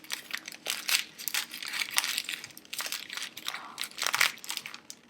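Paper packing being crumpled and crinkled by hand as a wrapped crystal is unwrapped, a continuous run of irregular crackles.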